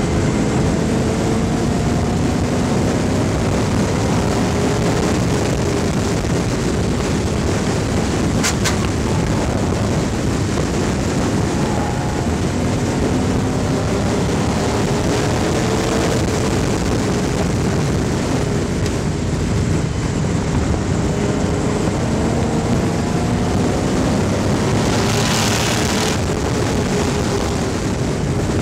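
Racing V8, a GM 5.3-litre LS (LM7) swapped into the car, running hard on track. Its pitch climbs slowly through each gear and drops back, over and over, under a steady rush of wind and road noise on the roof-mounted camera.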